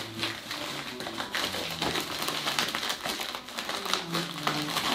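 White plastic poly mailer crinkling and rustling as it is handled and opened by hand, with soft background music underneath.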